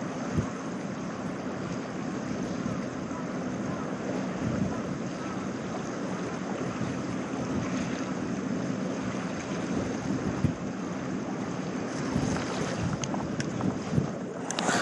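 Wind buffeting the microphone over the sea, with waves and a steady low hum underneath.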